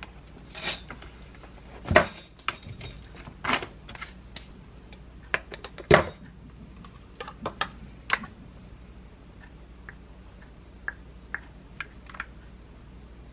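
Granola poured into a glass mug, then a plastic cup of mocha Greek yogurt tipped and knocked against the mug. It makes a string of light knocks and clinks, the sharpest about two and six seconds in, then a few faint clicks.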